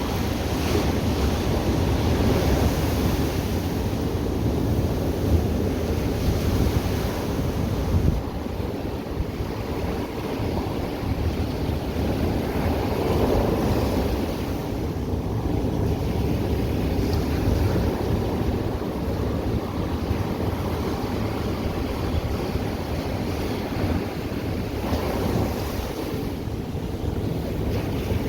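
Ocean surf breaking and washing on the beach, a steady wash of waves with a deep rumble underneath, and wind buffeting the microphone.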